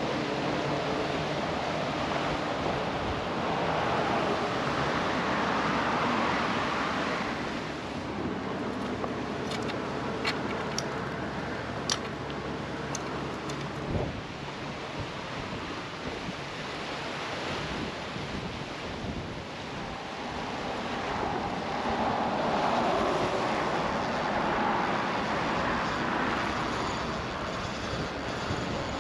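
Wind on the microphone over traffic passing on the bridge, tyre and engine noise swelling and fading twice. A few light clicks near the middle and a single knock just after.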